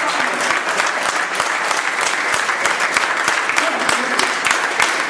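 Audience applauding, a dense, steady clapping of many hands.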